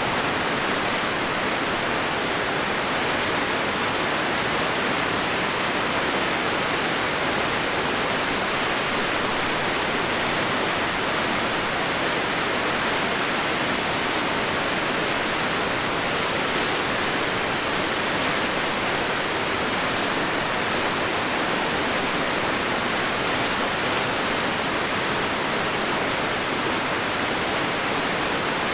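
Rushing whitewater of a mountain river tumbling over rocks: a loud, steady rush with no breaks.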